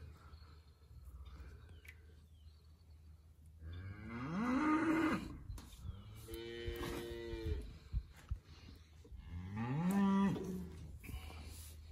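A calf bawls three times, long pitched moos of a second or two each, about four, six and ten seconds in; the first and last rise and fall in pitch, the middle one is held steadier.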